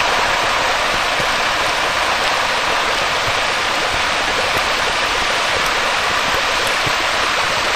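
Steady, even rushing hiss with no tune or beat.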